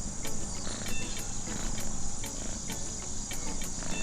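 Steady high-pitched insect chirring, like crickets, with faint scattered ticks and no clear animal call standing out.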